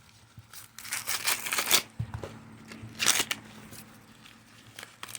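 Husk leaves being pulled and torn off an ear of sweet corn by hand: a run of ripping and rustling about a second in, and another short rip about three seconds in.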